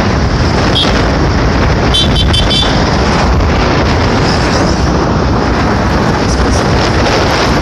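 Wind rushing over the phone's microphone and road noise from a moving motorcycle, steady throughout. About two seconds in, a quick run of about four short high-pitched toots.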